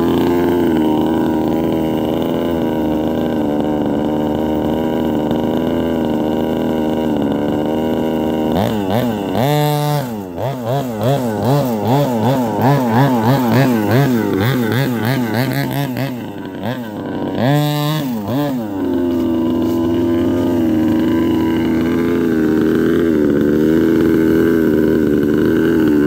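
The two-stroke gas engine of a 1/5-scale King Motor T-1000 RC buggy idles steadily, then is revved up and down in quick repeated throttle blips for about ten seconds before settling back to a steady idle.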